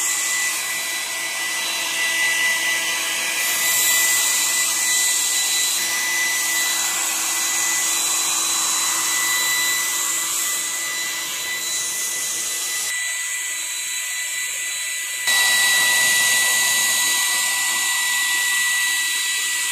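Electric hair dryer blowing on wet hair: a steady rush of air with a high whine. About two-thirds of the way through, the deeper part of the sound drops away for a couple of seconds, then comes back a little louder.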